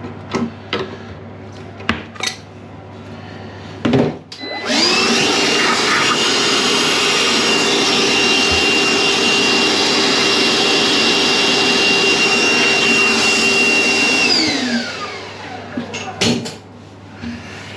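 Milwaukee wet/dry vacuum switched on about five seconds in. Its motor rises in a whine to full speed and runs steadily for about ten seconds, sucking the leftover water out of the bottom of a toilet cistern, then is switched off and winds down with a falling whine. A few clicks and a knock from handling the hose come before it starts.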